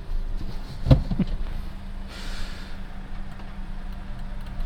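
Car engine idling with a steady low hum, heard from inside the cabin. There is a sharp knock about a second in and a short breathy hiss a second later.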